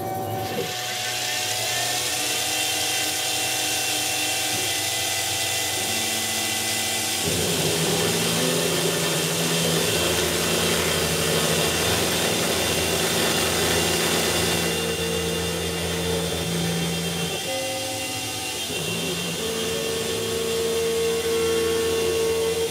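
CNC milling machine running a quarter-inch ball end mill through 304 stainless steel, with a hiss of flood coolant that starts about half a second in. The machine's steady tones step to new pitches several times as the cut goes on.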